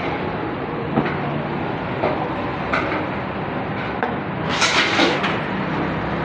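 Knocks and clatter of a plastic drum being handled and moved, the loudest cluster about two-thirds of the way in, over a steady background noise.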